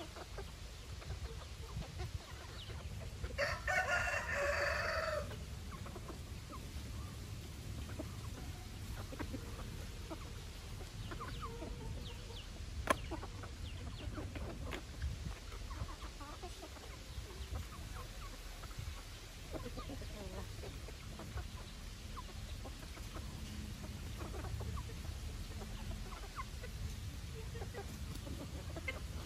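A flock of chickens clucking while feeding, with one rooster crowing once, about two seconds long, a few seconds in, and a single sharp click near the middle.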